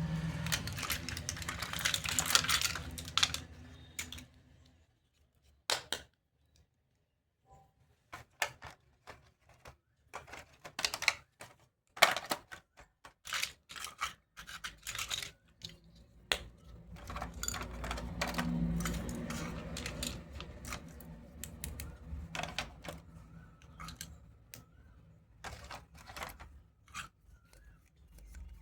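Hard plastic toy doctor-kit pieces being handled: a long run of irregular sharp clicks and clacks, with stretches of rustling at the start and about two-thirds of the way through, and a few seconds of near quiet about four seconds in.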